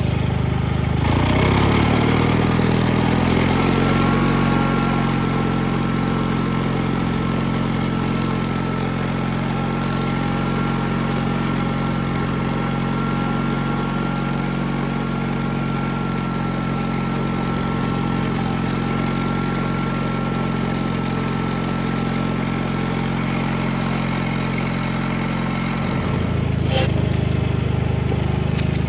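1986 Wheel Horse 417A garden tractor's Kohler engine running. Its pitch drops and settles a second or two in, then holds steady, and changes again near the end with a single sharp click.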